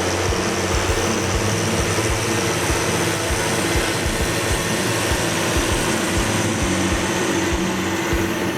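John Deere 7930 tractor's six-cylinder diesel engine running steadily under load while pulling a plough.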